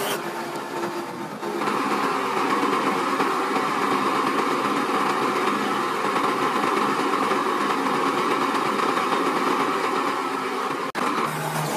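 Truck engine running to drive a Palfinger knuckle boom crane's hydraulics, with a steady whine that sets in about a second and a half in as the boom moves. It breaks off briefly just before the end.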